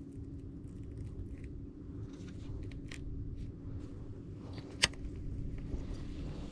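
Small clicks and rustles from handling a baitcasting reel and its line, with one sharp click near the five-second mark, over a steady low rumble and faint hum.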